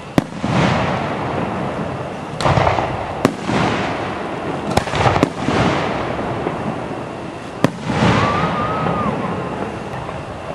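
Aerial fireworks shells bursting close overhead: several sharp cracks, each followed by a deep boom that rolls on and dies away over a second or more. A brief whistling tone rises and falls about eight seconds in.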